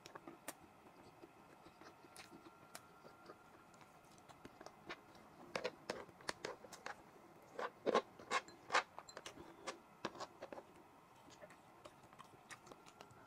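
Close-miked eating by hand: a scatter of soft, wet clicks and smacks from chewing and from fingers working a pile of cooked rice, busiest around the middle.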